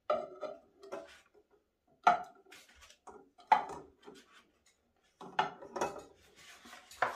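Eggs set one at a time into an empty metal saucepan, each landing with a sharp knock; about six or seven knocks at uneven intervals.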